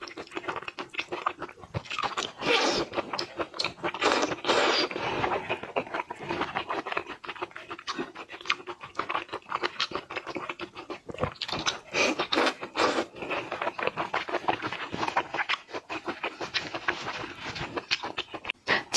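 Close-miked eating: wet chewing and lip-smacking of seafood, full of quick irregular clicks, with breathing between bites.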